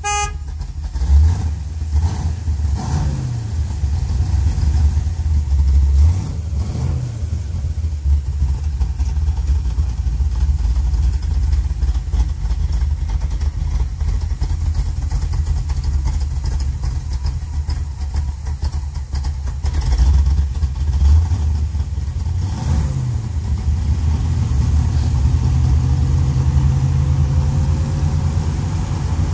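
1951 Chevrolet 3100 pickup's engine running with a steady low rumble, revved briefly a few times: about a second in, around six seconds and around twenty seconds.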